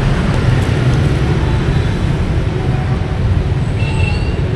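Steady low rumble of city street traffic, mostly motorbikes.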